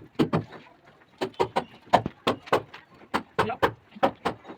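Irregular series of sharp knocks, about three a second, of hard objects striking.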